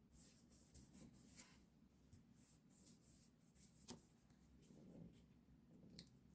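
Faint pen strokes scratching on paper, a quick run of them at the start and then more spaced out, with a sharp tap or click about four seconds in and another near the end.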